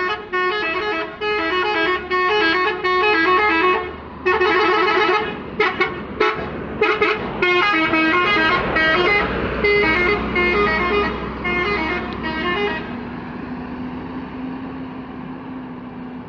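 Indonesian bus 'telolet' musical air horn playing a long, fast melody of stepped notes. It pauses briefly about four seconds in and again around six to seven seconds, then stops about thirteen seconds in. A quieter steady drone is left underneath.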